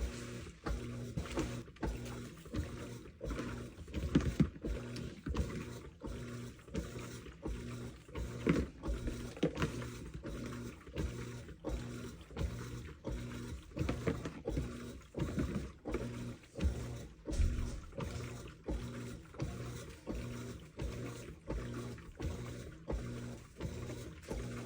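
Washing machine running a wash overdosed with detergent: water and laundry sloshing in the drum in regular surges about once a second, over a faint steady motor hum.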